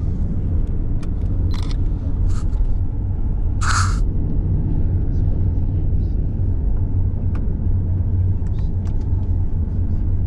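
Steady low rumble of a moving vehicle's engine and tyres heard from inside the cabin, with a few short hisses, the loudest about four seconds in.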